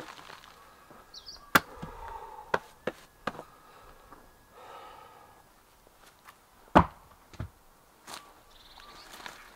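Scattered sharp knocks and clicks from shovel work in a dug earth pit, the loudest a heavy thump about seven seconds in.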